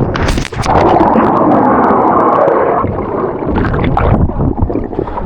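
Water splashing and churning loudly close to the microphone. A few sharp knocks come at the start, then a rushing spell of about two seconds, then scattered splashes.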